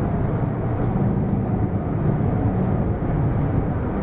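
Hino PDG-KV234N2 city bus driving along, its diesel engine running steadily, heard from inside the cabin.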